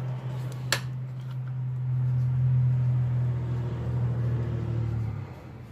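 A steady low mechanical hum, like a motor running, that swells and then stops abruptly about five seconds in, with a single sharp click just under a second in.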